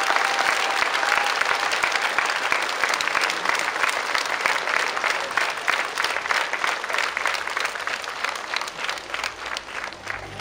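Large crowd applauding. The clapping is dense at first, then thins into more separate claps and fades toward the end.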